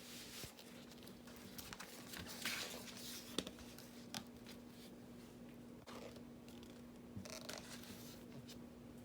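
Vinyl record packaging handled by hand: faint scraping and rustling of cardboard and paper sleeves with a few light taps, over a steady low hum.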